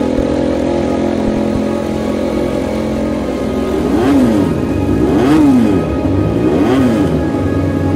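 KTM RC16 MotoGP bike's screamer V4 engine running at a steady idle, then blipped three times in the second half, each rev rising and falling quickly in pitch.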